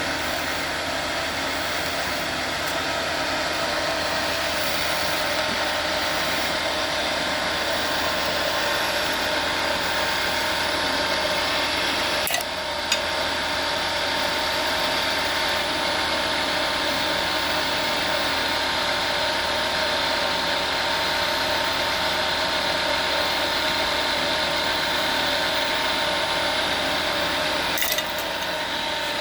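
Wood lathe running steadily while a turning tool scrapes and cuts a wooden bottle cap: a constant motor hum under a rasping hiss. The cut breaks off briefly twice, with a click each time.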